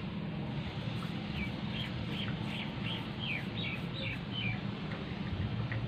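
A small bird chirping a quick run of about ten short, high notes, some dropping in pitch, over a steady low background rumble.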